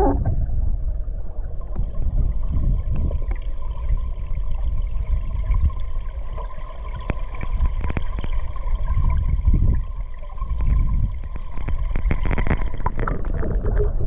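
Stream water flowing, heard underwater through a GoPro's waterproof housing: a steady low rumble with scattered faint clicks.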